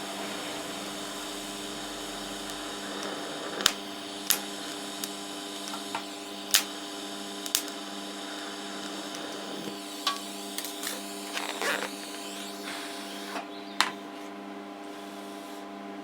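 R-Tech 160 TIG welder running with a steady hum, with sharp clicks scattered through it, while filling pinholes in a rusty steel fuel tank.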